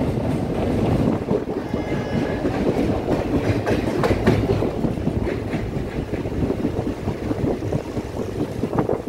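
Express train running at speed, heard from aboard a coach: steady rumble of wheels on rail, with rattling clickety-clack as the wheels cross rail joints and points.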